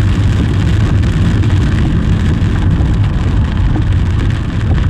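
Steady low rumble and hiss of a car on the move, heard from inside the cabin.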